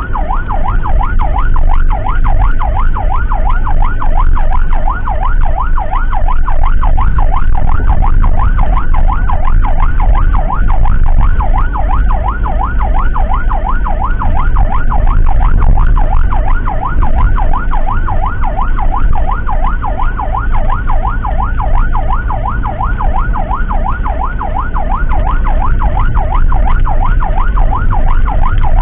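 An emergency siren in a fast yelp, its pitch swinging up and down several times a second, over a low vehicle rumble.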